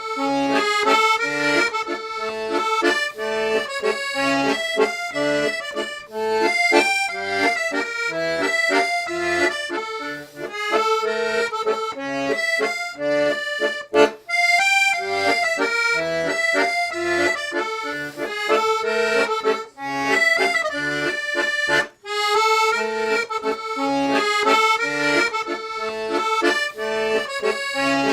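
A Parrot chromatic B-system button accordion playing a tune: a melody on the two-reed treble buttons over a rhythmic bass-and-chord accompaniment on the 96 bass buttons. The playing pauses briefly twice.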